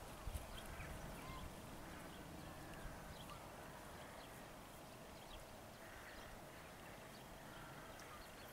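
A diesel-hauled passenger train rolling away into the distance: a couple of wheel clicks just after the start, then its low rumble fades to a faint steady background.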